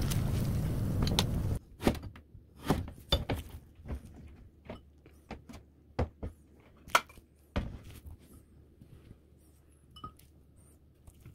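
Tempura frying in hot oil, a steady sizzle that cuts off suddenly about a second and a half in. Then a string of short knocks and clinks of crockery being handled, with a few fainter taps near the end.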